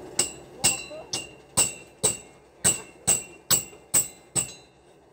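Hammer striking steel concrete formwork fittings: about ten ringing metallic blows, roughly two a second, stopping shortly before the end.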